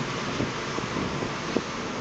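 Car driving, heard from inside the cabin: a steady mix of engine and road noise, with two faint clicks about a second apart.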